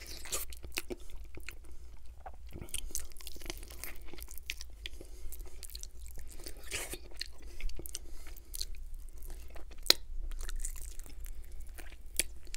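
Close-miked eating of a crisp-fried, sauced chicken drumstick: irregular crunchy bites and chewing as the meat is bitten and pulled off the bone, with one sharper crack late on.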